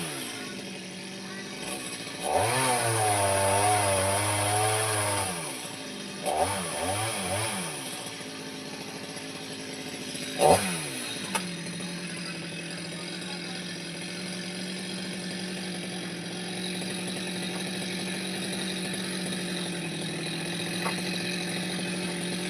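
Chainsaw engine revving up in several bursts, its pitch rising and wavering, then running steadily at one pitch for the second half.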